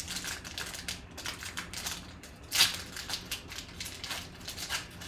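Trading cards being handled and flicked through: a run of quick clicks and rustles, with one sharper, louder snap about two and a half seconds in.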